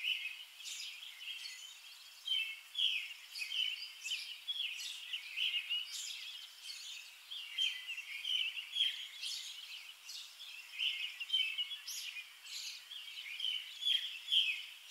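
Small birds chirping: a dense, continuous run of short, overlapping chirps.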